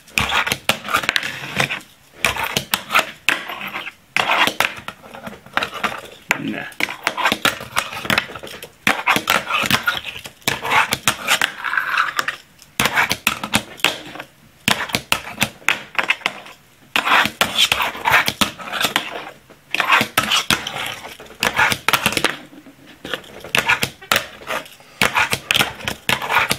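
Fingerboard tricks on a wooden box and tabletop: repeated sharp clacks and knocks of the tiny deck and wheels landing and popping on wood, with metal scrapes of the board grinding along a metal rail.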